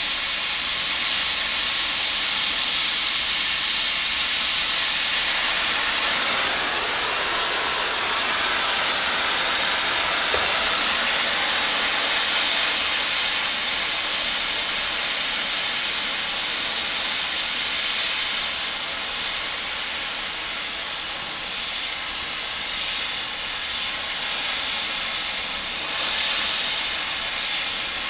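Electric arc welding on steel: a steady, continuous sizzling hiss of the arc laying a bead.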